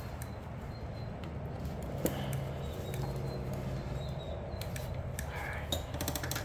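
Small clicks and taps of pliers and hand tools working on a string trimmer's fuel system, over a steady low background hum; the clicks come thicker near the end.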